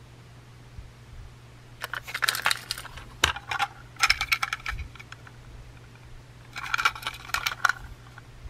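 Hard plastic toy train cars being handled, giving bursts of clicking and rattling about two seconds in, around four seconds and again near seven seconds, with a single sharp knock just after three seconds. A low steady hum runs underneath.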